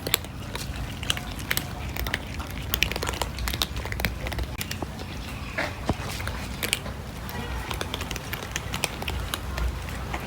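Cats chewing and crunching food: a continuous run of irregular crisp clicks over a low steady rumble.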